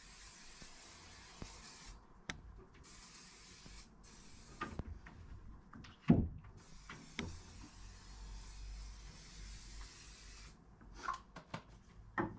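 Faint rubbing and handling sounds on wood, with scattered knocks and one sharp knock about six seconds in.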